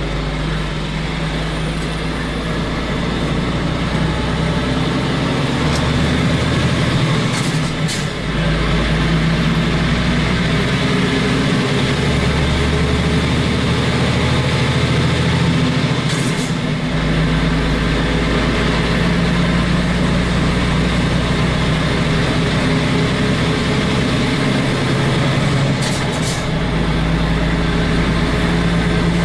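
Truck's diesel engine running on the move, heard in the cab through the open roof hatch, its note stepping up and down several times as the gears change. A few brief hisses come in about seven to eight seconds in, around sixteen seconds, and near the end.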